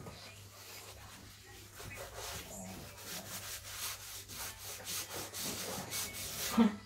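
Gloved hand rubbing paint across a bare wooden board with a small pad: a run of dry, scratchy back-and-forth strokes that get louder about halfway through.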